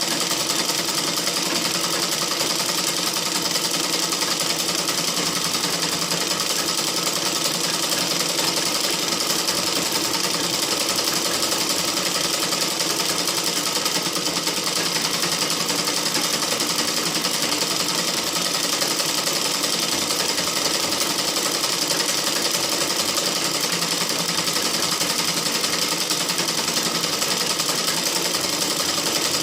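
Sewing machine running continuously at a steady speed, stitching without a break.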